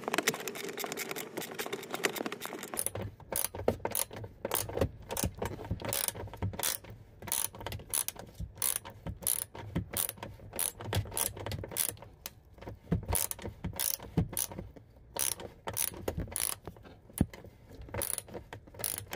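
Ratchet wrench with a short 14 mm socket clicking in quick, uneven strokes as it loosens a brake booster mounting bolt. A scraping rustle comes first, and the clicking starts about three seconds in.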